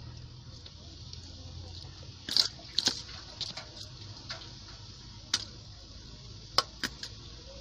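A steel spoon clinking and scraping against a stainless steel bowl while stirring sugar into crumbly steamed ragi flour: a few sharp, irregular clicks over a faint steady low hum.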